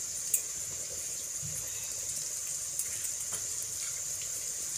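Sliced onions sizzling in hot oil in an iron kadhai, a steady hiss. There is a sharp tick about a third of a second in and a fainter one about three seconds later.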